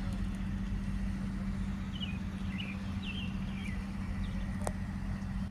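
Steady low outdoor rumble with a constant low hum, and a few short high chirps between about two and four seconds in.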